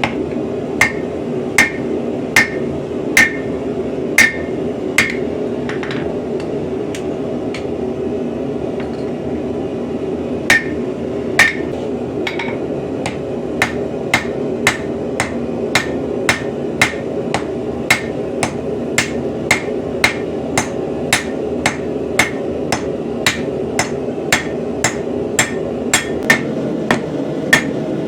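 Hand hammer striking steel on an anvil while forging an axe head: ringing blows about one every three-quarters of a second, a pause of about five seconds, then steady blows at roughly two a second. A steady low noise runs underneath.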